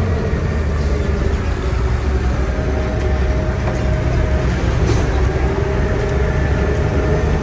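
Truck engine running under way with a loud, steady low rumble and a faint whine above it.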